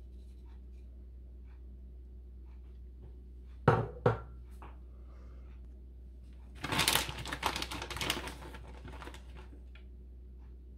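Grated mozzarella being handled and sprinkled by hand over a pizza on a baking tray: two sharp knocks about four seconds in, then a few seconds of crinkly rustling, over a steady low hum.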